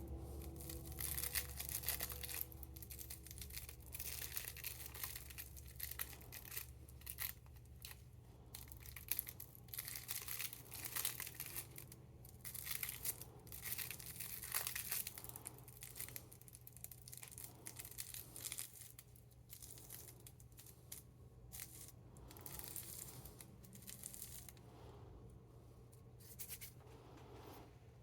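Rolling paper and its contents crinkling and rustling between the fingers while a joint is rolled, in irregular crackles that thin out near the end. A low steady hum runs underneath.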